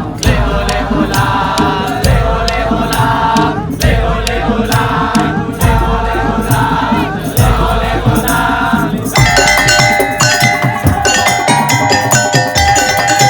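Madurese tongtong music: a group chanting a bending melody over percussion, with a deep drum hit about every two seconds. About nine seconds in, the voices and drum stop and ringing mallet percussion takes over.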